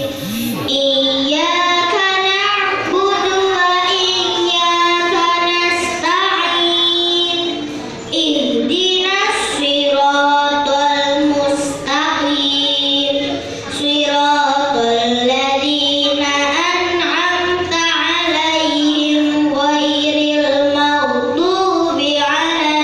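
A girl chanting Qur'an recitation into a microphone, in long held, ornamented melodic phrases, pausing briefly for breath a few times.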